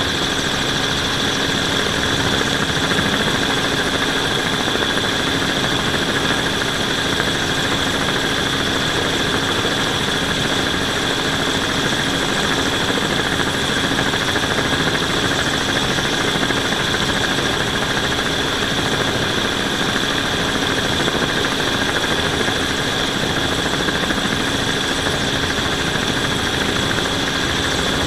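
A hovering camera drone's propellers and motors: a steady whine at an unchanging pitch over an even rushing noise.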